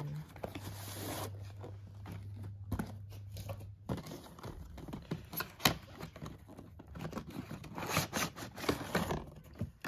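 Cardboard packaging being handled: a cardboard shipping carton's flaps pulled open and a printed cardboard product box drawn out and slid open, with irregular rustling, scraping and a few sharp taps.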